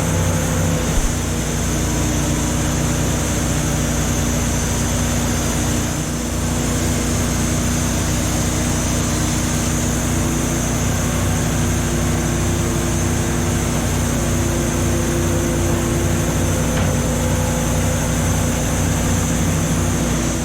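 Sawmill machinery running steadily, an engine-driven drone with a constant pitch and a high steady whine above it.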